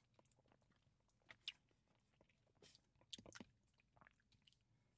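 Near silence with a few faint short clicks and mouth sounds: spoons scooping soft-serve Frosty from cups and people eating it, with a small cluster of clicks a little after halfway.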